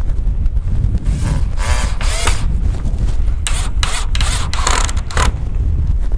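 Cordless drill-driver running in bursts as it drives screws into a rain gutter: first a longer run with its motor whine rising and falling, then several short bursts. Wind rumbles on the microphone throughout.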